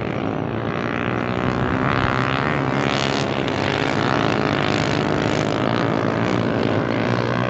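Motorcycle engine running steadily under way, with a rushing noise over it and a brief rise in pitch near the end.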